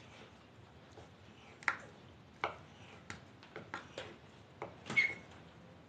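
Kitchen knives knocking on wooden cutting boards as boiled egg and parsley are cut: irregular single taps, about a dozen, the loudest near the end.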